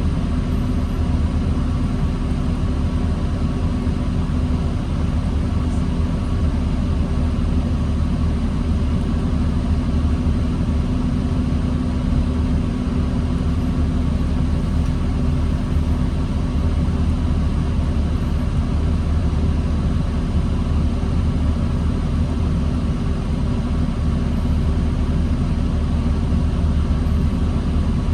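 Diesel engine of a 2009 New Flyer D40LFR transit bus running at a steady, low drone, with no change in pitch, as in idling or slow crawling in stopped traffic.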